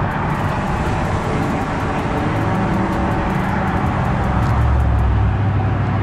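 Steady road-traffic noise, with a low engine hum that swells toward the end as a vehicle goes by close.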